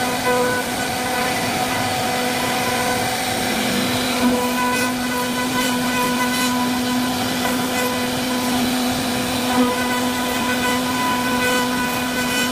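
CNC router spindle carving wood: a steady motor whine under a constant hiss of the bit cutting. The whine gets stronger and lower about four seconds in.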